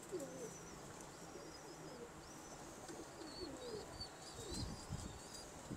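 Domestic pigeons cooing faintly, a series of short, low, falling coos. Thin high chirps from small birds sound above them.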